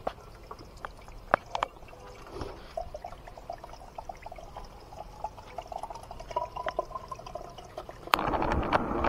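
Spring water pouring into a bottle as it is filled, with a pitched gurgle that rises as the bottle fills. About eight seconds in, a louder, steady rush of water takes over.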